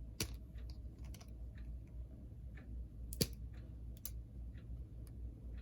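Small scattered clicks and taps of wire strippers working against the metal and plastic parts of a model locomotive motor, as a part is forced into place; two sharper clicks, one just after the start and one about three seconds in.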